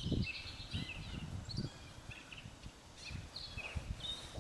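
Small birds chirping in short scattered calls, with a few faint low thuds.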